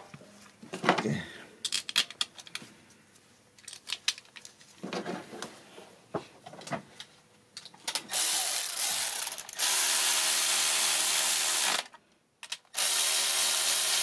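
Cordless electric ratchet running in two long stretches with a short break between, starting about eight seconds in, driving down the ignition coil hold-down bolts. A few light clicks and knocks from handling parts come before it.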